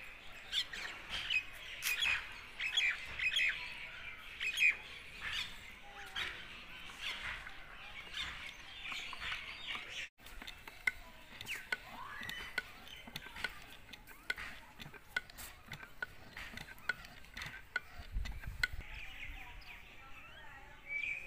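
Birds chirping: many short, high calls at an irregular pace, with a brief dropout about ten seconds in.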